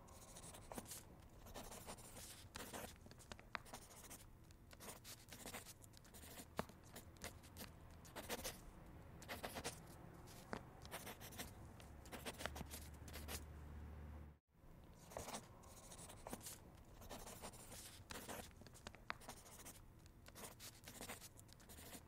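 Faint pen scratching on paper in quick, irregular strokes, the sound of drawing. It cuts out for a moment about two-thirds of the way through, then carries on.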